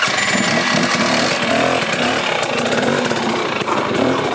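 Enduro dirt-bike engine running close by, loud and steady, its pitch wavering a little.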